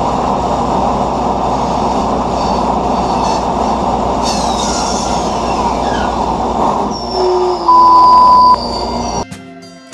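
Bandsaw cutting a wooden blank: a steady, loud run of blade and cutting noise with a squeal in it. Near the end, a brief, steady high tone is the loudest sound, then the saw noise cuts off suddenly and acoustic guitar music begins.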